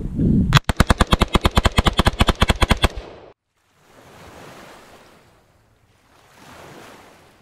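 AR-15 rifle in 5.56 with an Echo binary trigger firing a rapid string of about two dozen shots, roughly ten a second, for about two and a half seconds. The trigger fires on both pull and release, which makes near full-auto speed. After it stops suddenly, two soft whooshing swells follow.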